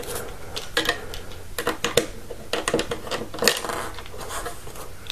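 Irregular light clicks and taps of a small screw, a screwdriver and the switch's metal case and circuit board being handled during disassembly.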